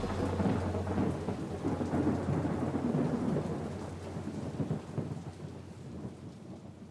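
Thunderstorm: a low rumble of thunder over rain, fading away steadily.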